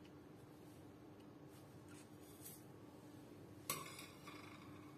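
A quiet kitchen with a faint steady hum, a few soft scrapes, then a single sharp clink with a short ring near the end, as the ceramic plate of dried oregano taps the glass blender jar.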